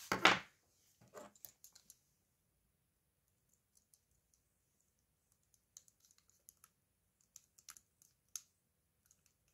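Faint, scattered small clicks and taps of fingers and a small screwdriver handling a security camera's plastic lens board as a tiny screw is started. The sharpest click comes right at the start.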